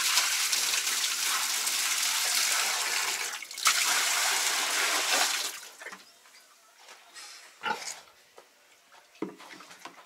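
Water poured from a bucket into a pig's trough: a steady splashing pour for about three and a half seconds, a brief break, then about two seconds more. After the pouring stops, a few faint short sounds from the pig at the trough.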